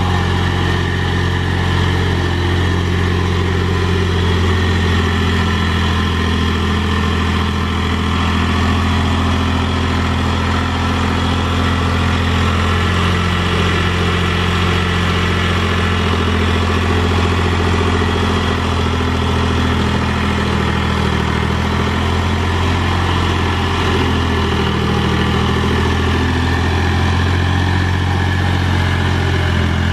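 Mahindra 3525 tractor's diesel engine running steadily while the tractor works dirt with a rear box blade. Its engine speed dips and recovers slightly now and then.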